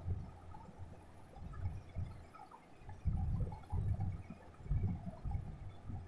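Irregular low rumbling and buffeting on the microphone, coming in uneven surges, strongest in the middle of the stretch.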